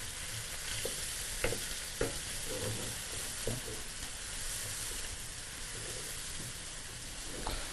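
Chopped onion and garlic sizzling in hot olive oil in a frying pan as they are stirred with a spoon, a steady hiss with a few light knocks of the spoon against the pan.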